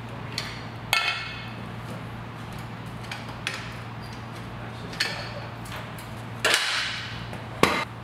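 Scattered metallic clanks and clinks of hand tools and parts against a Harley-Davidson Sportster as it is taken apart: about six sharp knocks, some ringing briefly, the loudest a little past halfway and near the end. A steady low hum runs underneath.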